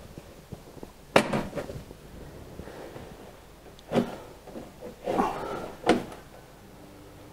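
Plastic coolant tank for a CNC spindle being opened and handled: three sharp plastic clacks, about a second in, near the middle and a second or two later, with a short rattle and scrape between the last two.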